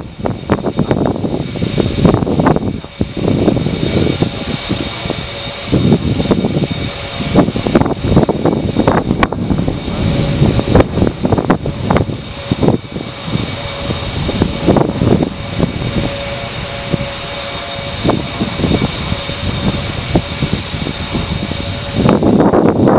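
Wind gusting across the microphone, a rumbling noise that rises and falls irregularly. A faint steady tone comes in about halfway through and stops shortly before the end.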